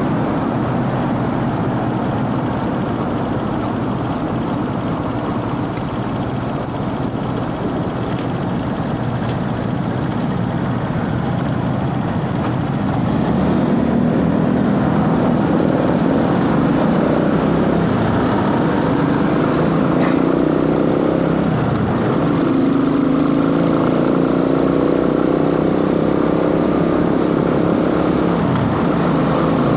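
Motorcycle engine running, getting a little louder about halfway through, then its pitch rising and falling repeatedly as the revs change.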